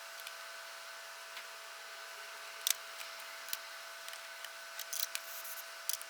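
Small, sharp clicks and snips of hand tools and wire being handled during LED soldering work, about a dozen scattered through the second half, over a faint steady hum.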